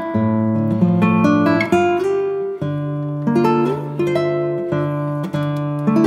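Background music: acoustic guitar plucking chords.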